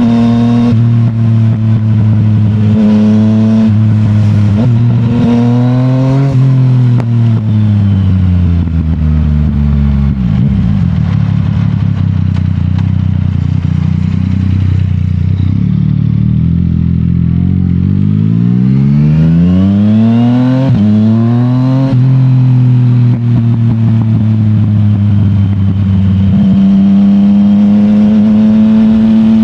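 Yamaha MT-09's CP3 three-cylinder engine through an Akrapovic full titanium exhaust, heard from the moving motorcycle. About six seconds in the engine pitch falls as the bike slows, stays low for several seconds, then rises again under acceleration and settles into a steady cruise.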